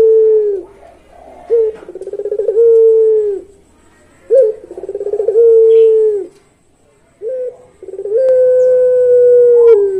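Puter pelung, a Barbary dove bred for a long coo, cooing: the tail of one call, then three long coos, each opening with a short note and a quavering rise, then a long held tone that drops at the end. The last coo holds its note longest, about two seconds.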